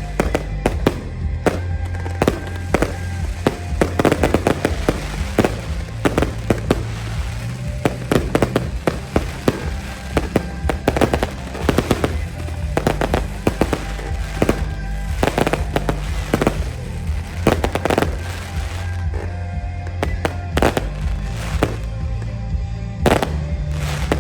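Fireworks shells bursting in a display: many sharp bangs in quick, irregular succession, with music playing alongside.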